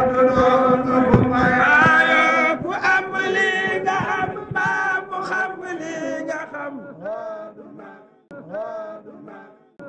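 Male voices chanting, melodic and sustained, fading out gradually; after about seven seconds it breaks into shorter separate phrases.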